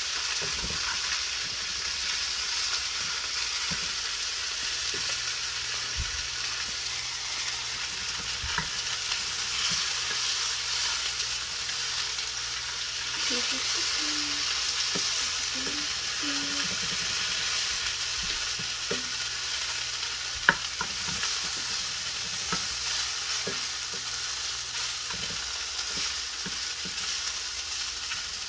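Shrimp sizzling steadily in hot oil in a frying pan, with scattered light clicks and scrapes of a utensil stirring and turning them, and one sharp clack about twenty seconds in.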